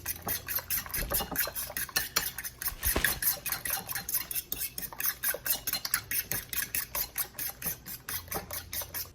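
Two eggs being beaten hard in a bowl, the utensil clicking against the bowl in a fast, even rhythm of about six strokes a second until the eggs are thin and watery.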